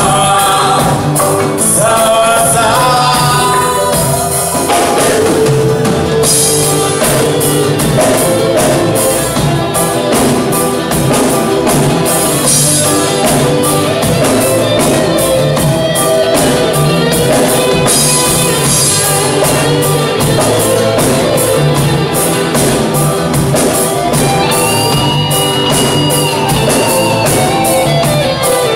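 Live band music: drum kit, guitars and keyboard playing over a steady beat, with a voice singing in the first few seconds.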